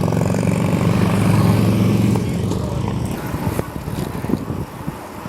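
A motor vehicle's engine running loud and close for about two seconds, then fading away, leaving wind noise on the microphone and light rattles.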